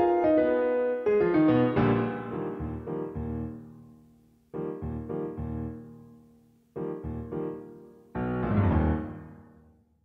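Closing piano music: a phrase of notes that gives way to three separate chords, each struck and left to ring and fade, the last dying away just before the end.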